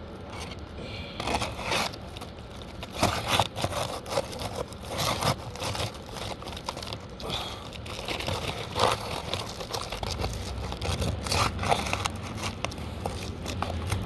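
Roof shingles scraping and crackling in irregular strokes as a hammer is worked under them to pull the nails, the shingle ripping where the nail holds it.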